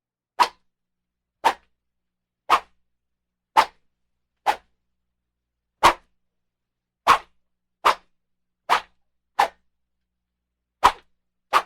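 Sword blades clashing in a fencing bout: about twelve sharp, ringing strikes, one roughly every second at an uneven pace, with silence between them.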